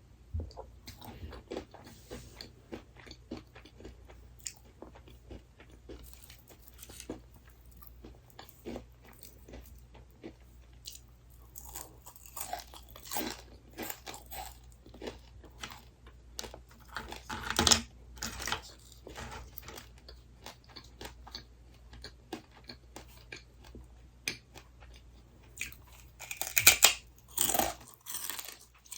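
A person chewing and biting crunchy food close to the microphone: many small crackling chews, with louder clusters of crunching bites about two-thirds of the way through and again near the end.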